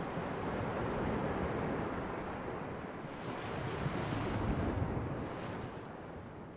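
Sea waves washing, with wind, swelling about four seconds in and then fading out near the end.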